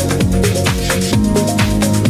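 Background electronic dance music with a fast, steady beat.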